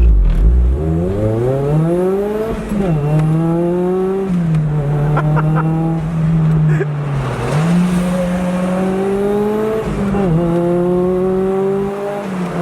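Turbocharged Toyota MR2 Spider's four-cylinder engine accelerating hard from a standstill, the revs climbing quickly, then dropping and climbing again as it shifts up through the gears several times.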